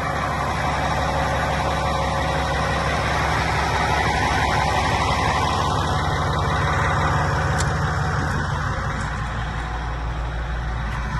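Cat D10R crawler tractor's Cat 3412 V12 diesel engine idling steadily.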